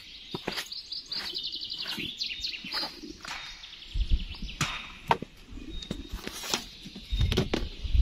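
A small bird singing quick trills of rapidly repeated high notes, twice in the first half, among scattered sharp clicks and knocks. Low rumbles come about four seconds in and again near the end.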